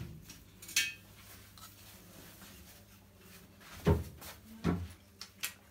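A silicone caulking gun being loaded and handled: a sharp click about a second in, then two heavier knocks later on and a short click near the end.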